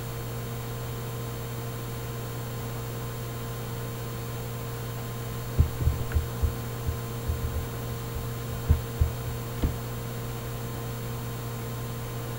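Steady electrical mains hum on the recording. Near the middle it is broken by a cluster of about a dozen soft, low thumps over some four seconds.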